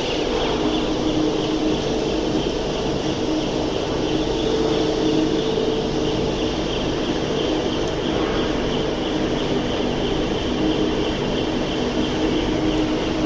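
Steady factory machinery noise with a constant drone of several hum tones, a forklift engine running among it.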